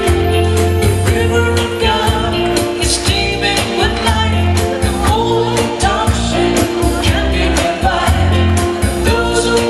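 Worship song: singing over instrumental backing with a steady beat.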